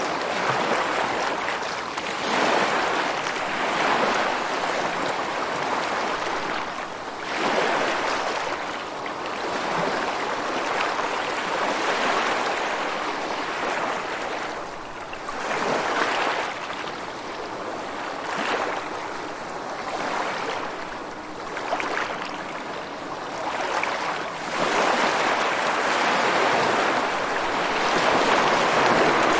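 Ocean waves washing onto a shore, the surf swelling and easing every few seconds.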